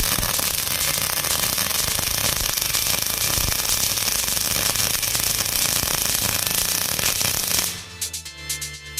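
A loud, steady, crackling hiss over background music, stopping suddenly about eight seconds in, after which only the music is heard.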